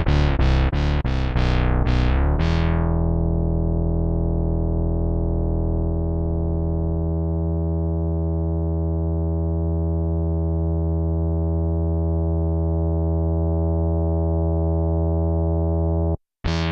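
Electric bass played through an MXR MB301 Bass Synth pedal. A quick run of about six synth-voiced notes comes first, then one low note held for over ten seconds, its bright top dying away, until it cuts off near the end.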